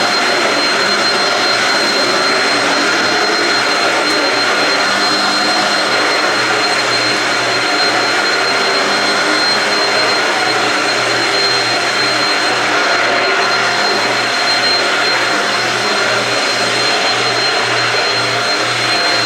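Corded Shark Rocket stick vacuum with DuoClean floor head running steadily, a high motor whine over its noise, with a low rhythmic pulsing coming in about six seconds in.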